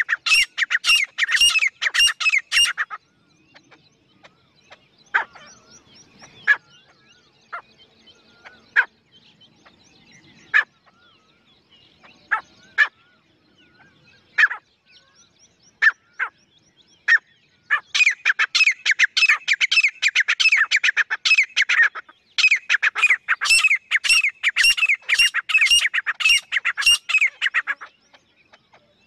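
Female grey francolin calling: a quick run of sharp, high repeated notes at the start, then scattered single notes. Two long runs of rapid repeated notes follow, from past the middle until near the end.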